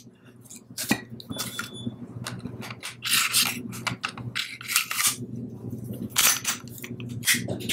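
Beretta APX pistol being reassembled: a string of sharp metallic clicks and short scrapes as the recoil spring and guide rod are seated in the slide and the slide is run back onto the frame rails.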